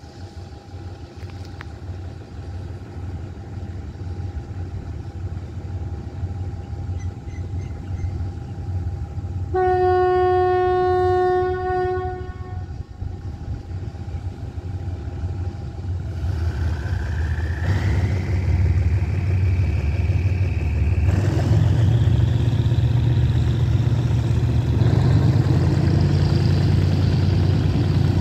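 Diesel locomotive of a passenger train running with a steady low rumble, sounding its two-tone horn for about three seconds about a third of the way in. Later the engine powers up to pull the train away: it grows louder, with a whine that climbs steadily in pitch.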